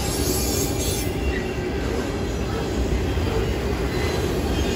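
Freight train of enclosed autorack cars rolling past, a steady rumble of steel wheels on the rails.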